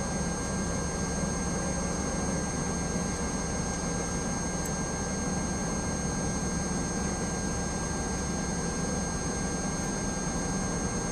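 Steady drone of a Boeing 757's jet engines and air systems running while the airliner is on the ground, heard from inside the cabin, with a few steady high whines over it.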